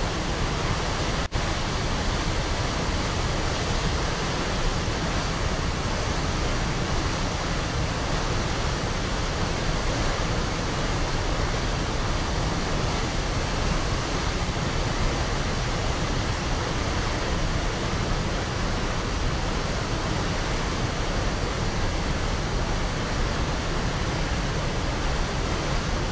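Steady roar of the Rhine Falls, heavy rushing and falling water heard up close.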